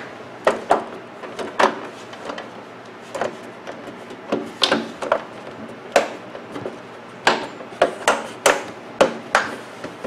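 The plastic inner seal cover of a Magic Chef microwave door being pressed and snapped back into place by hand: a series of irregular sharp clicks and knocks.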